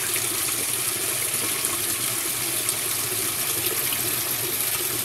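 Water pouring steadily into the tub of a Whirlpool WTW5300SQ0 top-load washing machine as it fills on the cold setting.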